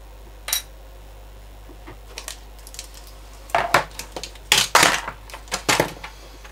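Tools and a small tester being picked up and set down on a workbench: one sharp click about half a second in, then a run of hard clattering knocks from about three and a half seconds in.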